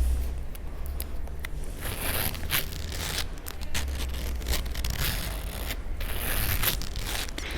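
Close-up handling of a hammered-leather wallet: irregular scratching and scraping with sharp clicks, over a steady low hum.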